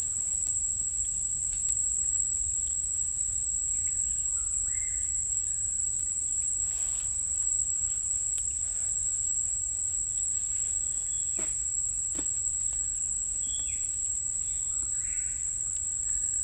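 Insects keep up a steady, shrill, high-pitched drone, with a few short bird calls breaking in now and then and two sharp clicks about two-thirds of the way through.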